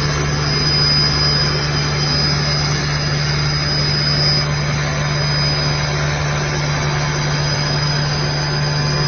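Stone countertop CNC machine running steadily: a constant low hum under even machine noise, with a high thin whine that comes and goes.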